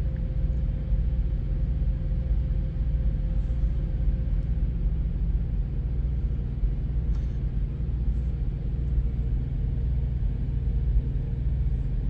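Semi-truck diesel engine idling, a steady low rumble heard inside the cab.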